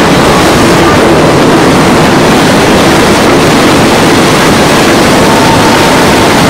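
Loud, steady running noise of a moving passenger train: wheels on the rails and air rushing in through open carriage windows.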